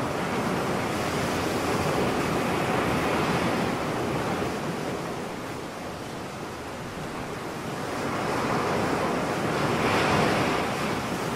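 Sea surf washing ashore, a continuous wash of waves that eases off about halfway through and swells again near the end.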